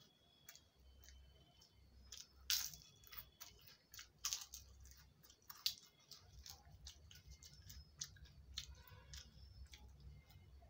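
Quiet chewing and wet mouth clicks of someone eating rice and curry by hand, with fingers mixing rice on a metal plate. A few louder sharp clicks come about two and a half, four and five and a half seconds in.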